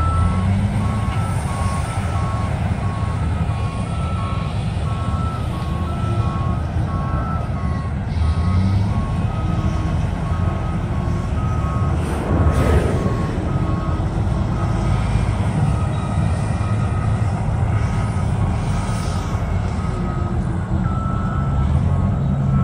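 Diesel engines of a Caterpillar excavator and a semi tractor running, with backup alarms beeping steadily at two alternating pitches as the excavator drives onto a lowboy trailer. A brief louder whoosh about halfway through.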